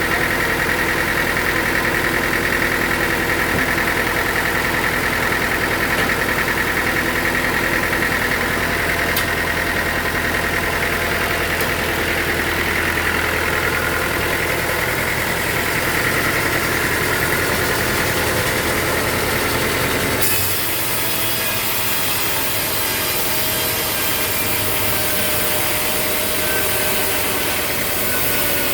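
Sawmill machinery running steadily, an engine-like drone with a high whine. About 20 seconds in it cuts abruptly to a different, slightly quieter machine sound.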